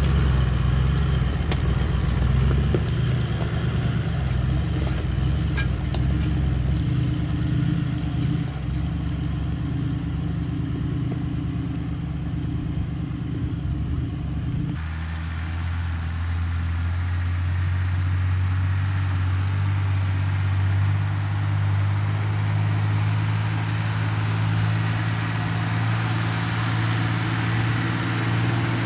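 Four-wheel-drive vehicle engine running steadily at low revs. Its note changes abruptly about halfway through.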